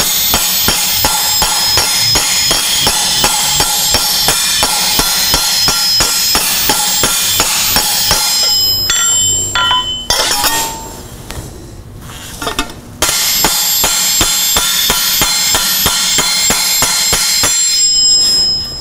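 Steady, rapid hammer blows of a flattening hammer on a thin warped mild steel plate lying on an anvil, each strike ringing, with a pause of about three seconds midway. The ring of the strikes is the sign of how flat the plate lies: hollow while the warp leaves a gap under the metal, turning to the clear ring of the anvil once the plate sits flat.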